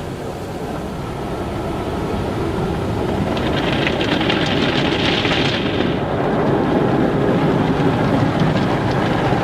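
Car wash running: a steady rush of water spray and machinery that slowly grows louder, with a brighter hiss for a couple of seconds near the middle.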